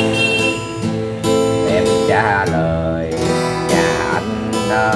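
Budget student acoustic guitar with a spruce top, played with a pick: a slow improvised melody of single notes over ringing strings, several notes bent and wavering in pitch.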